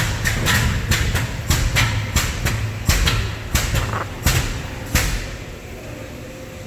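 Drum washing machine running with a steady low hum, with a rapid, irregular series of loud knocks and clatters that stops about five seconds in, leaving only the hum.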